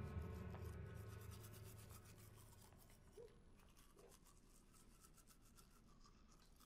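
Faint scrubbing of a toothbrush on teeth, quick repeated strokes. Background music fades out over the first two seconds.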